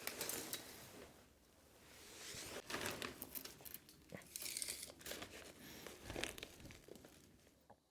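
Faint, irregular rustling and crinkling with scattered small clicks and scrapes: handling noise from someone working close by, dying away near the end.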